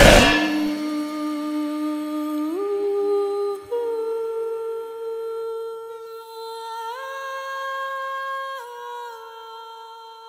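Outro of a trap metal track: the heavy beat cuts off, leaving a lone sustained, hum-like melodic tone that steps up and down through a few held notes while slowly fading out.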